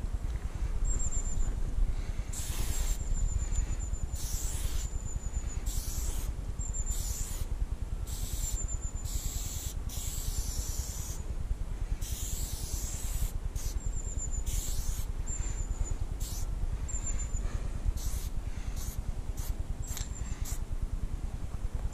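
Aerosol spray-paint can sprayed in a long series of short hissing bursts, some brief, some held for about a second, with short gaps between them.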